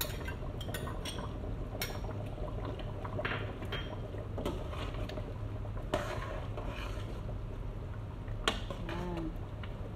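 Metal ladle stirring a pot of stew, knocking and scraping against the pot now and then in scattered clinks, over a steady low hum.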